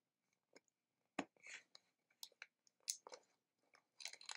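Faint, scattered clicks and rustles of fingers picking at the sealing sticker and cardboard of a small gift box to open it.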